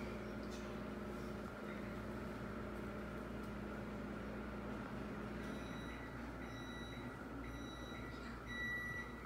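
Steady low hum with a faint steady tone under it. About halfway through, short high electronic beeps begin, about five of them evenly spaced a little under a second apart, the last one the loudest.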